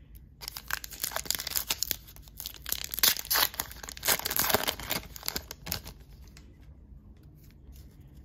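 A trading card pack's wrapper being torn open and crinkled for about five seconds, followed by a few fainter clicks and crinkles.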